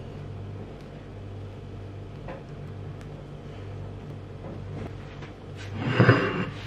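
Silicone spatula faintly scraping butter over a slice of bread on a plate, over a steady low hum. About six seconds in, a short, loud scrape as the plate is slid across a wooden cutting board.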